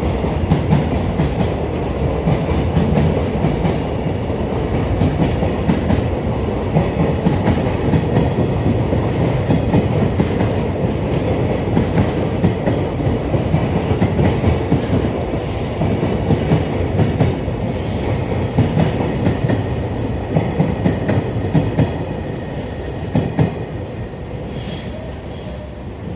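Freight train passing: a steady rumble of rolling wagons with rapid clicks of wheels over rail joints, easing a little near the end.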